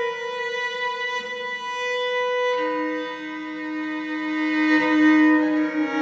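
Violoncello piccolo played solo with the bow in slow, long-held notes, stepping down to a lower note about halfway through.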